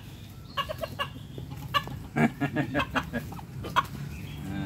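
Chickens clucking in a quick run of short, sharp calls, with a few louder clucks about two seconds in and again near the end.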